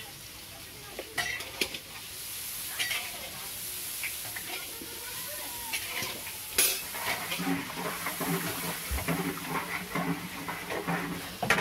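Food sizzling in hot oil in a large iron kadai while a long metal spatula stirs it. The spatula scrapes the pan and now and then clanks against it, sharply a few times, loudest about six and a half seconds in.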